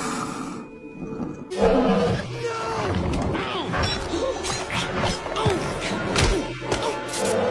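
Dramatic orchestral film score with sound effects for a barracuda attack. It drops low, then a sudden loud hit comes about a second and a half in, followed by swooping string glides, sharp accents and a roaring creature effect.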